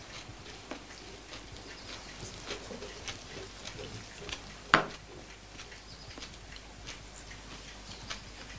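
Quiet table sounds of a meal: cutlery and crockery clinking and tapping now and then, with one sharper knock a little past halfway.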